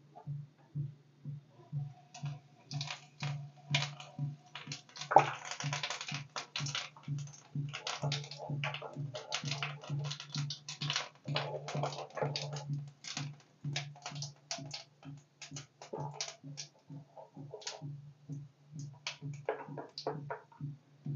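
Cumin seeds crackling and popping as they fry in hot oil in an aluminium kadai: a dense patter of small pops, thickest around five to seven seconds in. A low pulsing hum runs underneath.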